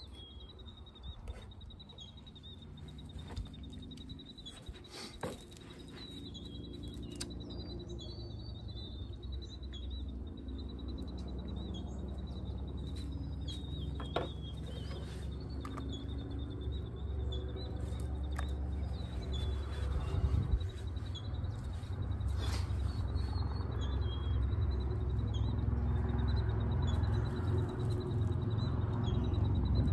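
Road traffic noise building into a steady low rumble over the second half, with birds chirping and a thin, steady high trill throughout.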